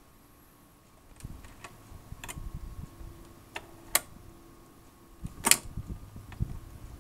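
General Electric automatic portable record player's changer mechanism cycling. The turntable starts about a second in with a low rumble and faint hum, the changer clicks and clacks several times, and the loudest clack comes about five and a half seconds in as a 7-inch single drops from the spindle onto the platter.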